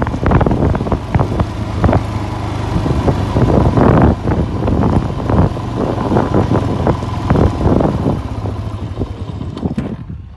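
A vehicle engine running with a steady low hum under heavy wind buffeting on the microphone, fading near the end.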